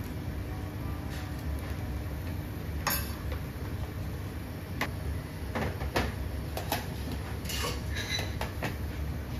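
Dishes and utensils clinking and knocking every second or so over a steady low hum.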